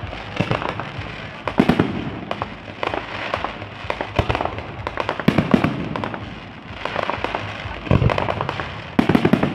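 Fireworks display: shell bursts and crackling reports going off in quick clusters every second or two. The loudest volleys come about a second and a half in and again near the end.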